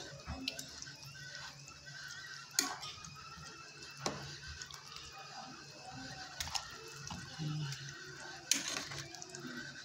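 Metal ladle stirring pork and vegetable soup in a pot: broth sloshing and dripping, with a few sharp clinks of the ladle against the pot.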